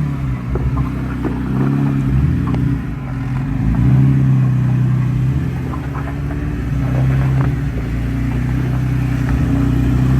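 Off-road vehicle's engine running at low revs, its pitch rising and falling with the throttle while crawling over rocks, with scattered knocks and clatter.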